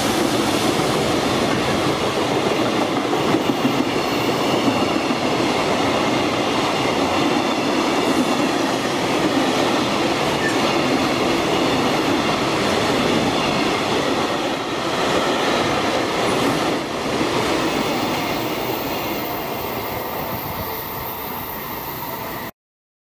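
Container freight train wagons rolling past at speed: a steady rolling noise of steel wheels on rail, easing a little toward the end, then cutting off abruptly.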